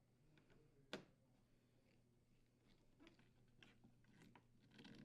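Near silence, with one sharp click about a second in and a few faint taps and ticks of parts being handled.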